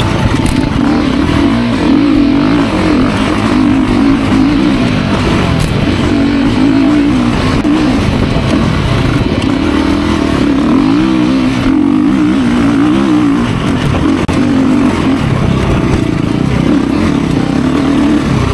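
Enduro dirt bike engine running loud under throttle, its note rising and falling continuously as the rider works the throttle over rough trail.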